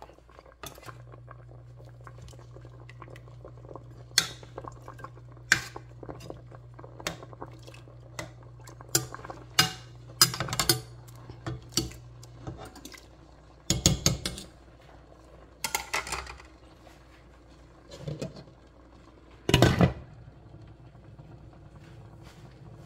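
Metal spoon clinking and scraping against a stainless steel cooking pot while coconut-milk broth is stirred and ladled, in a dozen or so sharp irregular clinks, the loudest a little after two-thirds through. A low steady hum runs under the first half.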